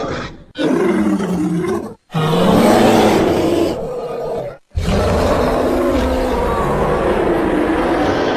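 Animal-like creature roars and growls, played as separate sound-effect clips one after another with abrupt cuts between them. Each call has a wavering, bending pitch.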